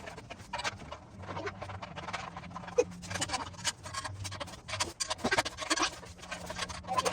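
Handling noise from assembling a metal table frame: irregular clicks, knocks and scrapes as the side beam is fitted to a leg and bolts are threaded in by hand.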